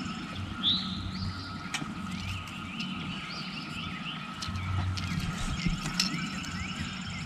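Small birds chirping and calling over and over in quick short notes, with a faint low rumble coming and going underneath.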